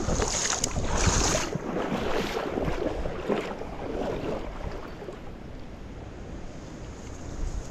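River water splashing and rushing, with wind on the microphone. It is loudest in the first second or two, then dies down.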